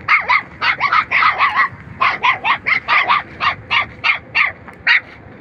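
Puppy yelping over and over in short, high cries, about three to four a second.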